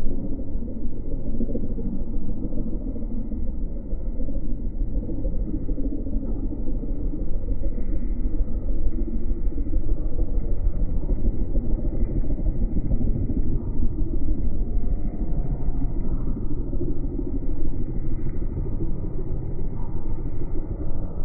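Wind buffeting the microphone: a steady, loud low rumble that rises and falls.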